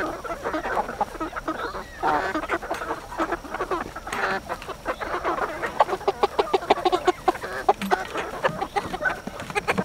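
A flock of Red Ranger broiler chickens (Murray's Big Red Broiler) calling and chattering as they crowd around a feed bucket. In the second half, many quick sharp taps run through the calls.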